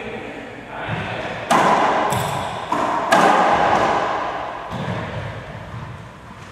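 Racquetball rally: several sharp smacks of the ball off racquets and the court walls, each ringing with echo in the enclosed court.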